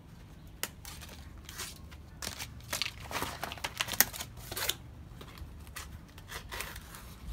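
Dry royal-palm yagua (the stiff leaf sheath of the palm) crackling, scraping and tearing in irregular bursts as it is handled and trimmed with a knife, busiest from about three to five seconds in, with one sharp crack near four seconds.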